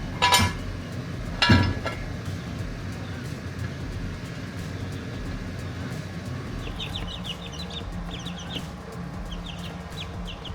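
Two ringing metal clanks in the first two seconds, then chickens clucking in quick short runs over the last few seconds.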